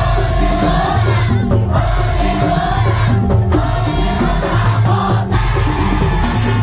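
Madurese tong-tong (daul) ensemble playing: a dense, pounding low beat of drums and percussion under a wavering lead melody line.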